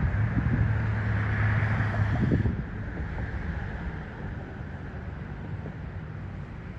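A steady low engine hum over outdoor hiss that drops away after about two and a half seconds, leaving a fainter background; a short knock comes right at the start.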